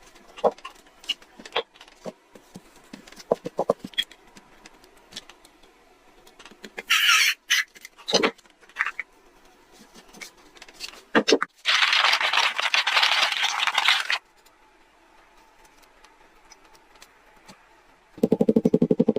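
Scattered clicks and taps of workshop handling, then two bursts of hissing, the second lasting about two seconds. Near the end an electric motor starts with a loud, rough, pulsing buzz.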